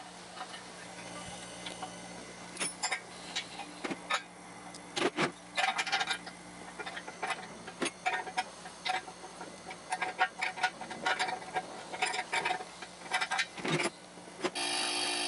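Brass pipe fittings and copper tubing being handled and threaded by hand onto a steel air tank: irregular small metallic clicks and taps over a faint steady hum. About a second before the end, a louder steady sound with several tones comes in and holds.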